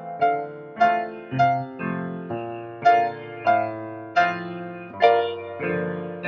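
Solo piano playing a slow melody over chords, with a new note struck about every half second or so.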